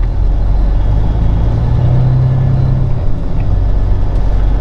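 Peterbilt 379 semi truck's diesel engine running, heard from inside the cab as the truck turns a corner: a steady low drone that swells for a second or two in the middle.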